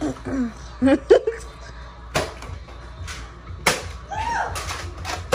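Three sharp snaps from a foam-dart (Nerf) blaster fight, blasters firing or darts striking, about two, three and a half and five seconds in, with short cries from the players near the start.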